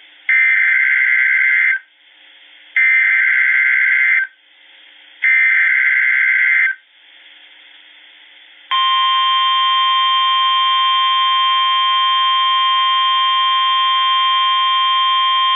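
Emergency Alert System SAME header: three loud digital data bursts of about a second and a half each, with faint radio hiss between them. About nine seconds in, the steady 1050 Hz NOAA Weather Radio warning alarm tone starts and holds. The sequence marks the start of a new weather warning message.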